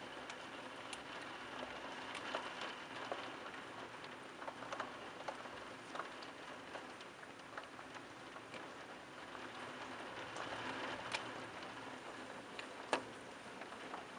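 Thunderstorm rain falling steadily, a constant hiss with scattered sharp ticks of drops landing close by, one louder tick near the end.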